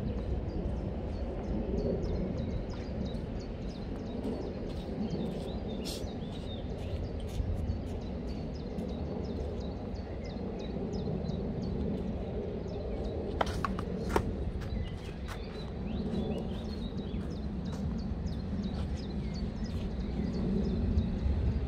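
Tennis balls being struck with rackets on a clay court, a few sharp hits, the loudest two less than a second apart just past the middle, over a steady low outdoor rumble and faint high bird chirps.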